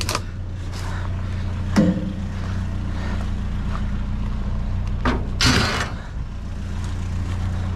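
Vehicle engine running steadily, with a few sharp knocks and a short clatter about five and a half seconds in.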